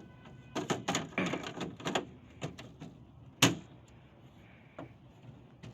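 Clicks, scrapes and knocks from the plastic casing and panels of a portable air conditioner being handled: a quick run of clicks in the first two seconds and one sharp knock about three and a half seconds in.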